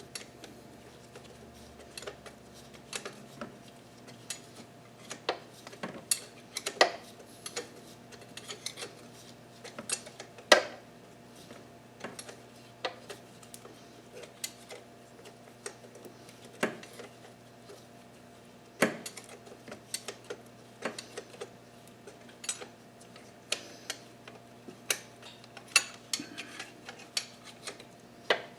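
Irregular metallic clinks and clanks of hand tools and engine parts being handled, a few of them sharper and louder, over a steady faint hum.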